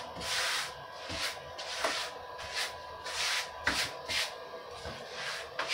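Hand rubbing or scraping strokes on stone tile, one or two a second at an uneven pace, as in grouting work. A faint steady hum runs underneath.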